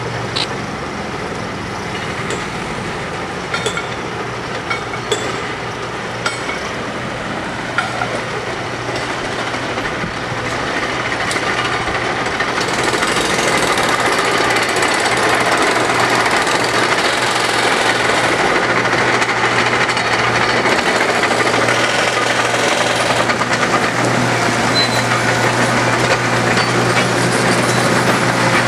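Heavy diesel construction machinery running steadily, with sharp metal clanks in the first several seconds; the engine noise grows louder about halfway through as a tracked machine moves close by.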